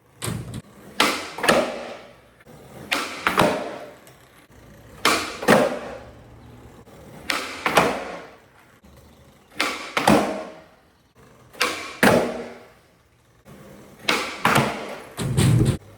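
Skateboard tricks on flat ground: the tail popping and the board landing, in pairs about half a second apart, over and over every couple of seconds.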